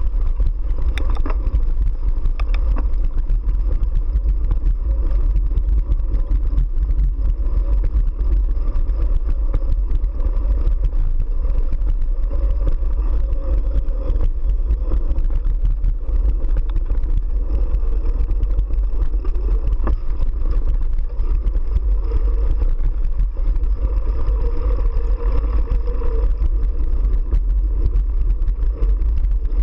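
Steady low rumble of wind and vibration on a GoPro 3 mounted on a mountain bike rolling along a dirt track, with tyre noise and faint rattles from the bike.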